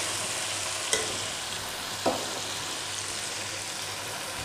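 Chicken with tomatoes and chopped green chillies sizzling in hot oil in a metal pot, stirred with a metal ladle that knocks against the pot twice, about one and two seconds in.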